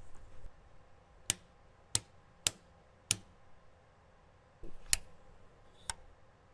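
Push-buttons on a planetarium star projector's control console clicking as they are pressed: about six sharp, separate clicks at uneven intervals, with a short soft rustle just before the fifth.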